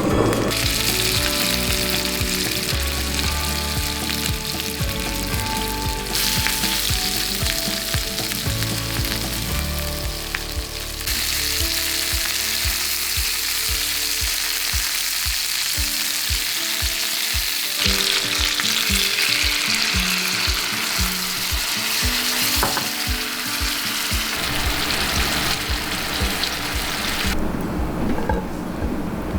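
Pork-belly-wrapped eggplant rolls sizzling as they fry in oil in a pan, with background music. The sizzle changes level abruptly a few times.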